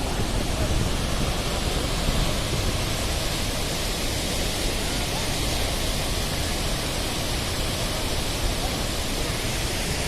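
Muradiye Waterfall: a steady rush of falling water.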